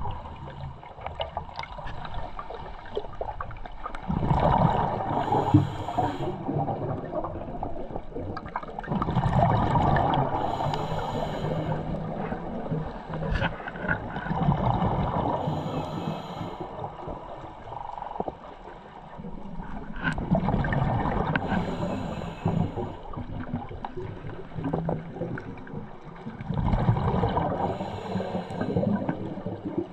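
Scuba diver breathing through a regulator underwater: five gurgling rushes of exhaled bubbles, about one every five to six seconds, with a quieter hiss between them.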